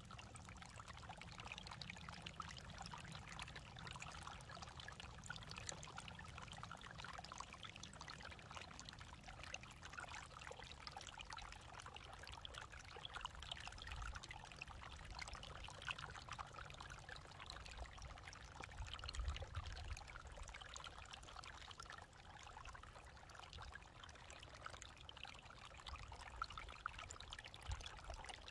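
Meltwater trickling and gurgling under a sheet of ice over rock: a steady, grainy trickle. A low rumble comes and goes beneath it, stronger in the second half.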